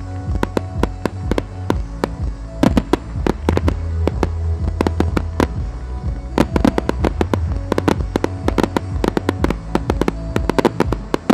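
Aerial firework shells bursting in rapid, irregular bangs, with a dense run of reports about two and a half seconds in and again from about six seconds on. Display music plays under them with a heavy, boomy bass.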